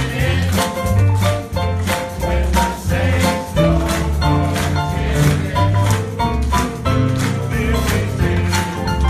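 Swing band music played with a steady drum beat, bass and singing.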